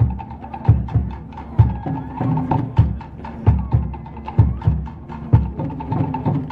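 Tahitian drumming: rapid wooden clicks of slit-log drums (to'ere) over a deep drum beat about once a second.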